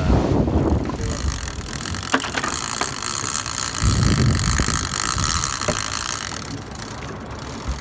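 Big-game lever-drag trolling reel giving a steady high-pitched buzzing whine for several seconds as a hooked bigeye tuna takes line against the drag, over the low rumble of the boat's outboards and wind.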